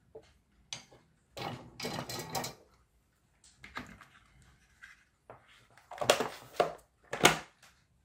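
Small parts and plastic being handled and set down on a workbench: a rustling, clattering stretch, then a few sharper knocks near the end, the last the loudest.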